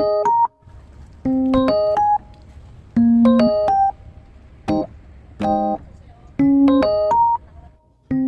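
Keyboard music, an electric-piano-like tone: short phrases of a few quick notes, repeating about every one and a half seconds with short pauses between.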